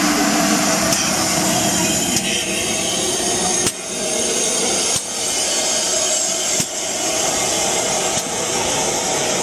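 Steam locomotive, the GWR Hall class 4-6-0 No. 4965 Rood Ashton Hall, moving slowly past at close range with a steady, rough hiss of steam. A few sharp knocks stand out, each a second or more apart.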